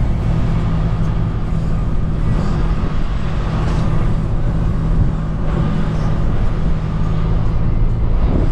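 A car driving, with a steady engine hum and road noise.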